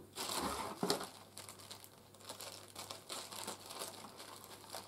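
Clear plastic packaging bag crinkling as it is handled and cut open with scissors. The rustle is densest in the first second, then comes as scattered fainter crackles.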